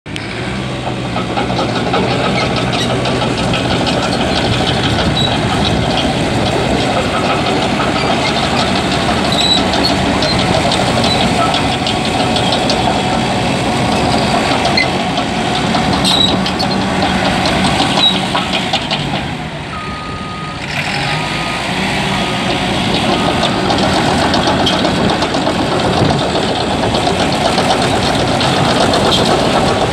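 2016 Cat D5K2 LGP crawler dozer's diesel engine running steadily as the dozer drives, with the steel tracks clanking. About twenty seconds in the engine eases off and the backup alarm beeps several times as it reverses.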